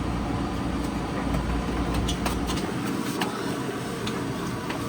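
Scattered light knocks and clicks as the old boat refrigerator is handled and shifted, over a steady rumbling noise whose low end drops away about halfway through.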